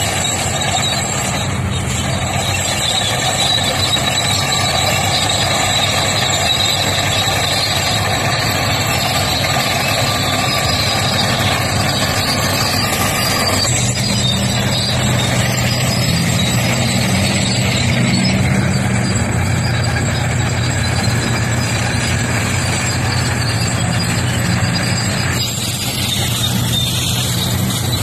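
Heavy diesel engine of a large tracked bulldozer running steadily while it pushes rock. About halfway through, the sound changes abruptly to the deeper, stronger engine sound of large off-highway haul trucks driving by, one of them loaded with rock.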